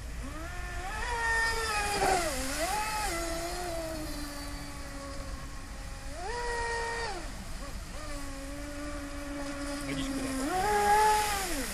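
High-pitched whine of a radio-controlled speed boat's Leopard 5692 1340kv brushless motor, rising and falling in pitch as the throttle is opened and eased off. It climbs sharply about six seconds in and again near the end, with a faint spray hiss beneath.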